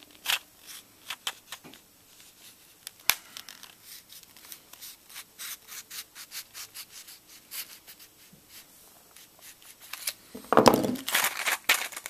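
Knife blade scraping and cutting into a plastic-and-foil blister pack: irregular scratchy clicks, with a louder burst of crinkling near the end as the pack is worked open.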